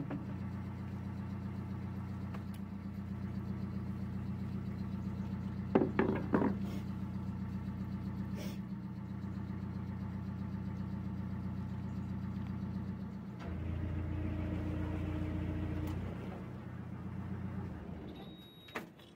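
Narrowboat's diesel engine running steadily at low revs. A few sharp knocks come about six seconds in. Past the middle the engine note changes and grows louder for a couple of seconds, then drops away near the end, when a short high beep sounds.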